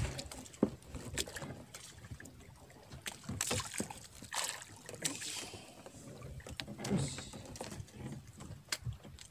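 Water washing against the hull of a small fishing boat in irregular swells, with scattered knocks and clicks.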